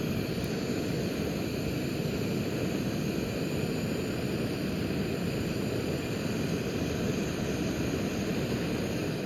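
Handheld gas torch burner running at a steady roar, lighting charcoal for the cooking fire; it stops right at the end.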